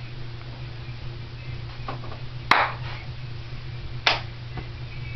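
Sharp hand claps: two loud ones about a second and a half apart, with a few fainter ones between and after, over a steady low hum.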